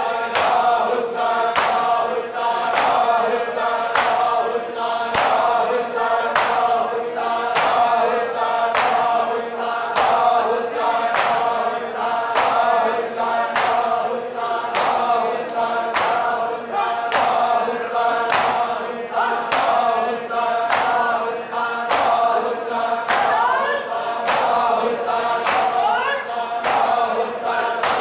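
Crowd of men chanting a mourning noha in unison while beating their chests together: a steady rhythm of sharp open-hand slaps, about one and a half a second, under the group singing.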